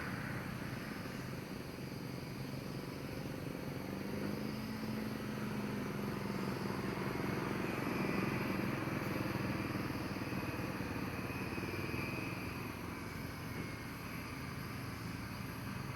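A low motor-vehicle engine hum over steady outdoor noise, swelling to its loudest about halfway through and then fading, as a vehicle passing.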